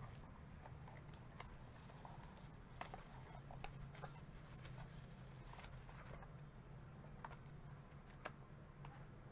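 Light crinkling of a small plastic bag and scattered soft clicks of plastic and cardboard packaging being handled, as a wireless mouse goes back into its box, over a low steady hum.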